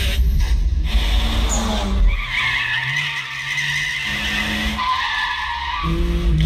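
Car engines running with tyres squealing in long drawn-out squeals, sound from a car chase or race playing on a television.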